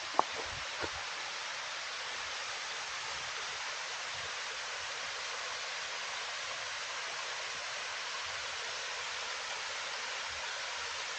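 Steady rushing noise of falling water from a waterfall. Two short sharp clicks come in the first second.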